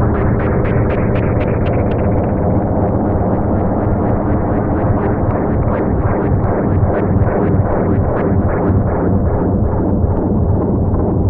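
Moog Matriarch analog synthesizer sounding a dense, low, noisy ring-modulated drone, pulsed by a steady ticking at about four beats a second. The ticking is brightest in the first couple of seconds.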